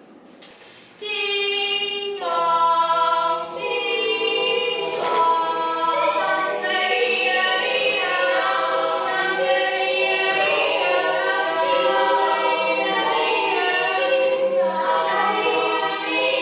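Several voices singing together a cappella in long held notes, with no instruments. The singing comes in about a second in.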